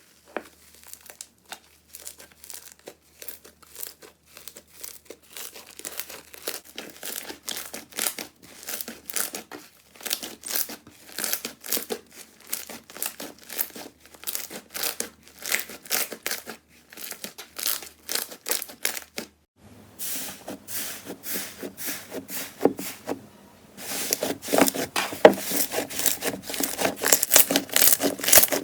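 Slime being squeezed, pressed and stretched by hand, making dense crackling clicks and little pops. The clicking grows louder and busier after a change about 24 seconds in.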